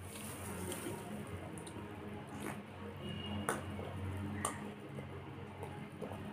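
Close-miked eating sounds: a gloved hand squishing and mixing rice and chicken curry, with wet chewing. There are a few sharp clicks, one as a metal cup is raised to drink, over a steady low hum.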